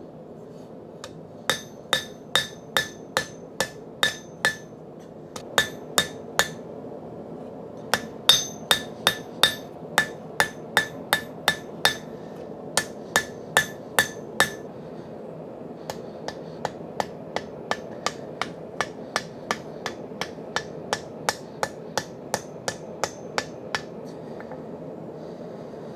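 Hand hammer forging a spring-steel knife blade on an anvil to widen it: runs of sharp, ringing blows, about two to three a second, with short pauses between runs, and lighter blows in the last run from about the middle on. A steady low rushing noise runs underneath.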